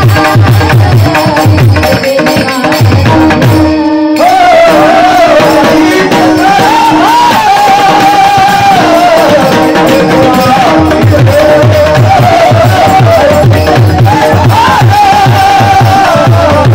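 Marathi devotional song: a woman's voice singing a flowing melody over steady hand-drum strokes and a held accompanying tone. The first few seconds are drums and the held tone only, and the singing comes in at about four seconds.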